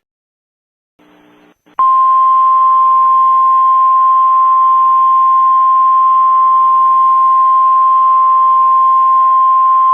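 Emergency alert attention tone: after a second or so of silence and a brief faint hiss, a single loud, steady high tone starts about two seconds in and holds unchanged over a faint background hiss.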